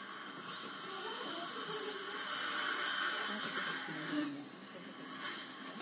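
Dental handpiece whining, spinning up about half a second in and dropping away about four seconds in, over a steady hiss.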